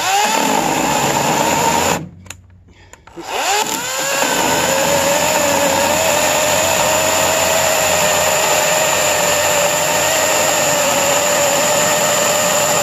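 EGO 14-inch cordless electric chainsaw cutting through an oak block. It runs about two seconds, cuts out suddenly, then starts again a second later and runs steadily with a whine through the rest of the cut. The cut-out is the cold battery shutting the saw off in 35-degree weather.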